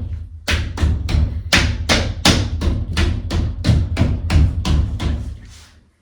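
A rapid run of thumps, about three or four a second, as a new plastic bottom seal is knocked along onto the edge of a glass shower door. The thumps fade out near the end, as the seal goes fully on.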